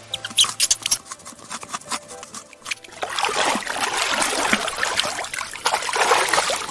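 Water splashing and trickling, loudest over the last few seconds, after a few sharp short clicks in the first second.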